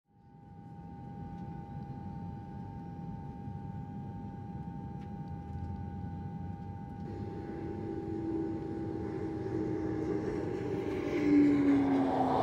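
Jet airliner engines at an airport: a steady high whine over a low rumble. A louder rushing noise builds over the second half, with a lower tone gliding slowly down.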